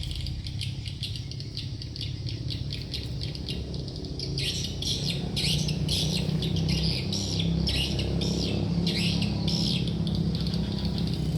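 Spiderhunter (sogok ontong) calling in rapid, repeated short chirps, growing louder and denser about four seconds in, over a low steady hum.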